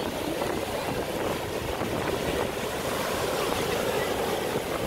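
Sea surf breaking and washing up the sand in a steady rush, with wind buffeting the microphone.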